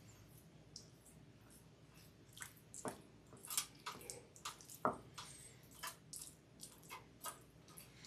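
Basting brush dabbing and spreading a sticky ancho-honey marinade over raw chicken: faint, irregular wet smacks and squishes, coming more often from about two seconds in.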